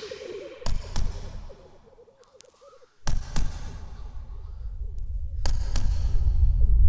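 Percussion hits with a deep boom, in three pairs: the hits of each pair about a third of a second apart, the pairs about two and a half seconds apart. A low rumble swells toward the end, and a wavering tone fades out in the first two seconds.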